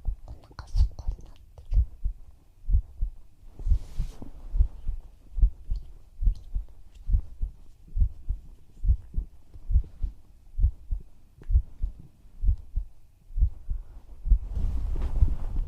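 Human heartbeat heard close up: a steady, even lub-dub thump about once a second. A soft breathy noise comes up near the end.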